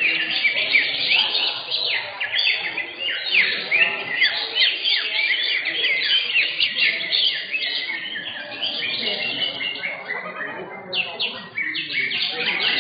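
Several cucak hijau (green leafbirds) singing at once: dense, rapid, overlapping high chirps and whistled phrases, with a brief lull about ten and a half seconds in.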